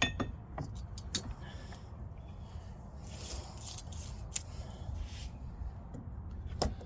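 Heavy steel socket extensions being handled and set down, with several sharp metal clinks and knocks, one ringing briefly, and a short scrape about three seconds in.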